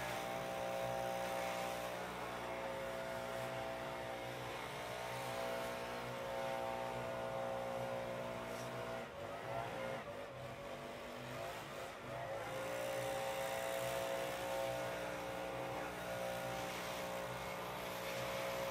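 Small multirotor drone hovering, its propellers making a steady whine of several pitched tones. The pitch wavers and shifts for a few seconds around the middle, then settles back to a steady hover.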